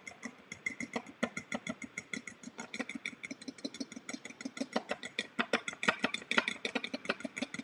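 An egg being whisked with a fork in a bowl: the fork clicks rapidly and steadily against the bowl.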